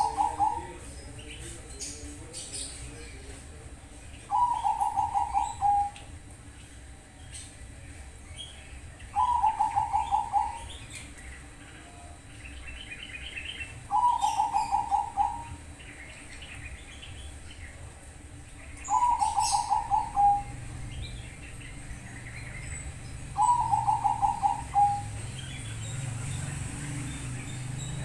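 Bangkok-strain zebra dove (perkutut) singing its loud, clear song: a quick run of staccato coos about a second and a half long, repeated steadily about every five seconds, five full phrases in all. Faint small-bird chirps sound between the phrases.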